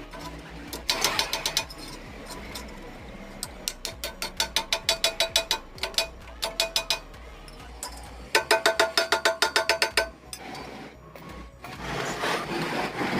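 Runs of quick, evenly spaced metal taps, about five or six a second, each ringing with the same tones, like a hammer tapping steel square tubing. A rougher, noisy stretch follows near the end.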